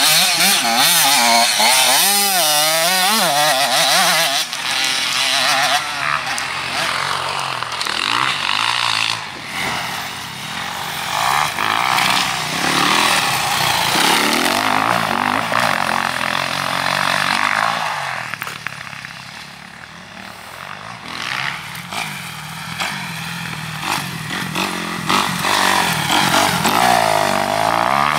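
Motocross bike engine revving up and down under hard throttle, with wind noise on the microphone; the engine eases off for a few seconds about two-thirds of the way through, then picks up again.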